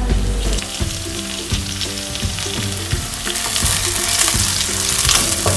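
Sliced onions sizzling as they fry in hot oil in a nonstick wok, with a spatula stirring them and knocking against the pan now and then.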